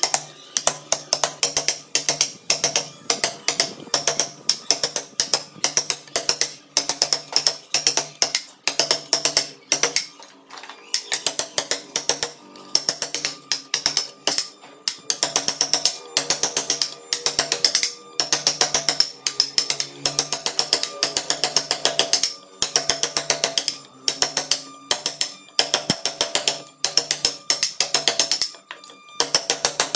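Wooden mallet striking a carving chisel in quick runs of rapid taps with short pauses, the chisel cutting chips from a block of wood.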